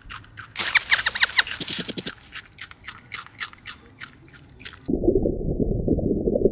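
An animal's rapid series of sharp, high clicks and chirps, a few of them falling in pitch. It cuts off abruptly about five seconds in, and a lower, muffled noisy sound takes over.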